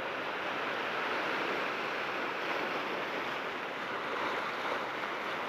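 Ocean surf washing over shoreline rocks: a steady rushing of water with slight swells.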